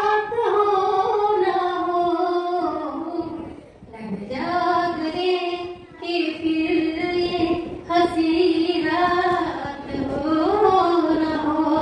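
A female voice singing a slow song unaccompanied, in long held notes, with short breaths about four and six seconds in.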